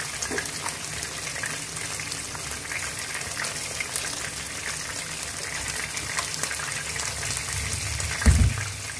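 Chicken wings shallow-frying in hot oil in a wok: a steady crackling sizzle with scattered pops. A short low thump about eight seconds in.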